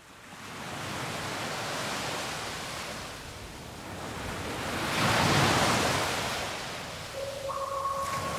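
Ocean surf washing onto a beach, a steady rush that fades in, swells to its loudest about halfway and eases back. Near the end a held musical note comes in over it.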